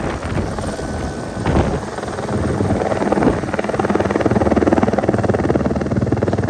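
Helicopter taking off and climbing overhead, its rotor beating in a fast, even chop that grows a little louder about halfway through.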